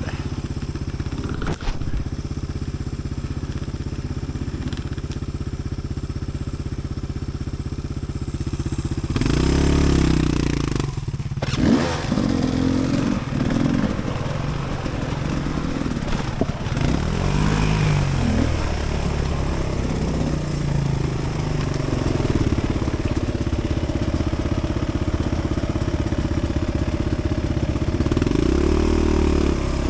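Dirt bike engine running at a low, steady idle, then from about nine seconds in revving up and down again and again at low speed.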